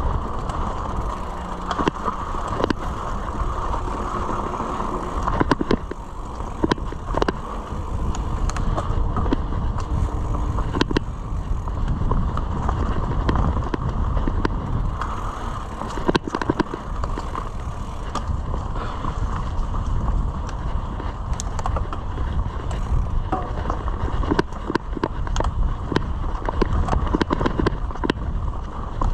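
Mountain bike ridden along a dirt trail: steady rushing wind and tyre noise, broken by frequent short clicks, knocks and rattles from the bike over bumps.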